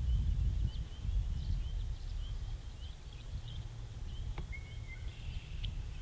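Low wind rumble over a steady background chorus of many short, high chirping calls from small frogs and birds around the pond. Near the middle come one sharp click and a brief level whistle. The swan is not calling.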